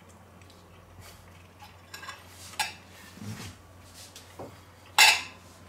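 Metal fork clinking and scraping against a plate: a few light clicks, then one louder clink near the end.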